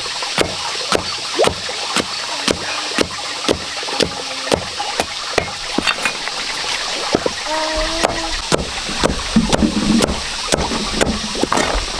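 Knife chopping pig feed with steady, even strokes, about two a second.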